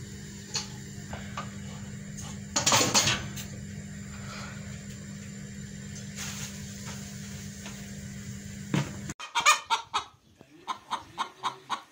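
A steady low hum with a brief loud rush of noise, then, from about nine seconds in, a hen clucking in a quick run of short, loud calls.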